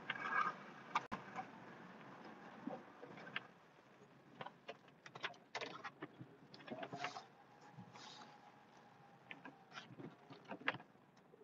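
Scattered light clicks and knocks in a pickup cab during snowplowing, with a faint electric motor whine for a couple of seconds past the middle, typical of a Western WideOut XL plow's hydraulic pump moving the blade.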